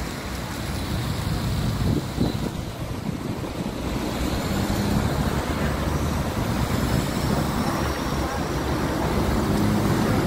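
Steady road-traffic noise: a continuous low rumble of passing cars and engines, with no single event standing out.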